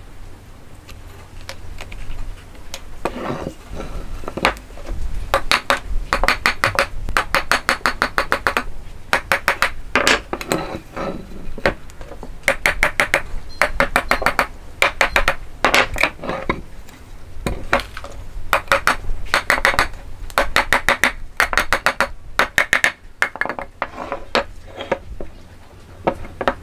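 A hammer tapping on a hardwood joint in quick runs of light strikes, each run lasting about a second, with short pauses between them. The taps drive the timber joint pieces together and apart.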